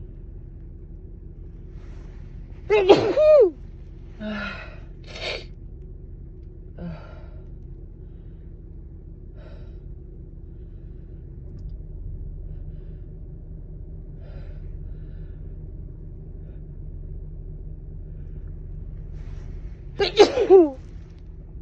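A woman's allergy sneezes: one loud, sharp sneeze with a falling pitch about three seconds in, and another near the end, with a few faint breaths in between.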